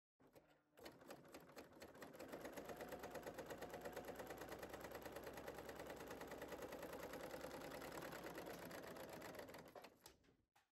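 Computerized serger (overlocker) stitching a seam through two layers of fabric, with a fast, even needle rhythm. It starts about two seconds in, runs steadily and stops shortly before the end.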